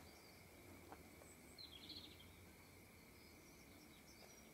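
Near silence: faint background with a few soft bird chirps and a faint steady high tone.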